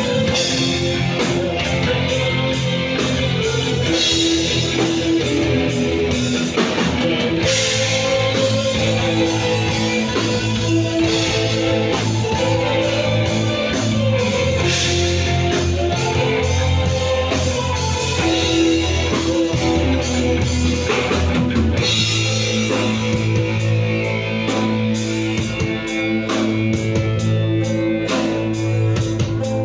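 Rock band playing live, with guitars over a drum kit, loud and continuous.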